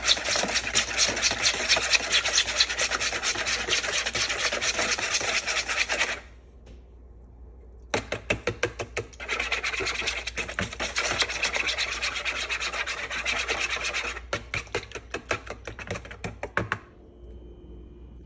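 Wire whisk beating a French toast egg mixture in a mixing bowl, its wires scraping the bowl in quick, rhythmic strokes. The whisking pauses about six seconds in, starts again about two seconds later, slows to scattered strokes and stops near the end.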